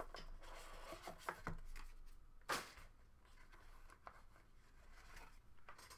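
Quiet handling of a cardboard trading-card box and its contents: faint rustling and scraping with a few light taps, the sharpest about two and a half seconds in.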